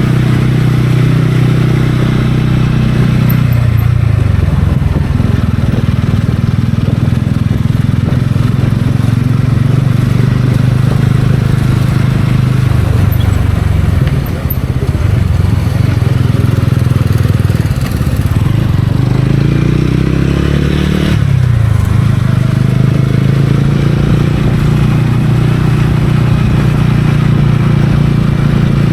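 TVS Ronin's single-cylinder engine running under way, its pitch dropping about three seconds in, then climbing again around twenty seconds before a sudden break, as at a gear change.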